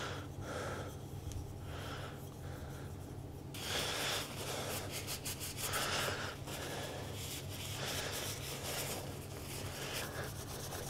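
Paper towel rubbing and wiping over a hand plane's metal casting, a dry rustle of repeated strokes. The first few seconds hold softer, evenly spaced rubbing strokes; from about three and a half seconds in the rustling becomes denser and brighter.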